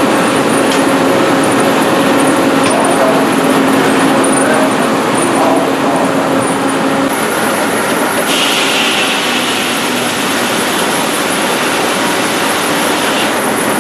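Steady, loud machinery din of a steam-powered sawmill at work, with a low steady hum that stops about seven seconds in. From about eight to thirteen seconds in, a higher rushing noise rides over it.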